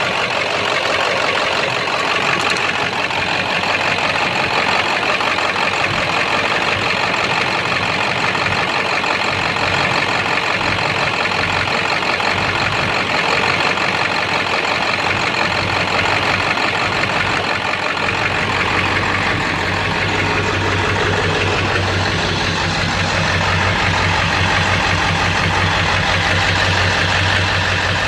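7.3-litre V8 diesel engine idling roughly, with a knock. The fault behind the knock, rough running and loss of power has not been found. About two-thirds of the way through, a deeper, steady hum comes in and carries on.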